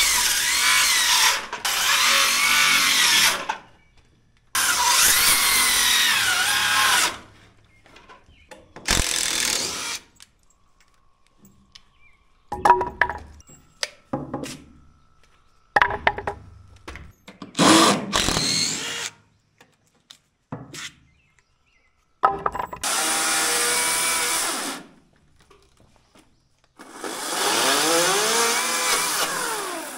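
Cordless circular saw cutting through wooden form bracing in several runs of a few seconds each, its motor whine dropping and rising as the blade loads in the wood. In the gaps between cuts there are knocks and clatter from the boards being handled.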